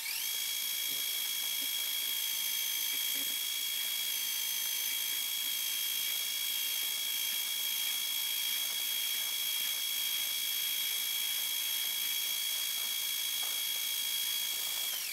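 Metal lathe running at speed with a steady high-pitched whine while the tool faces off the end of a steel drill-rod workpiece.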